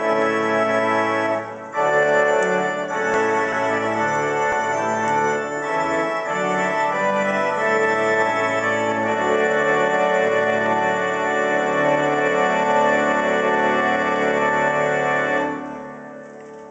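Organ playing slow, sustained full chords that change every second or so; the music dies away near the end.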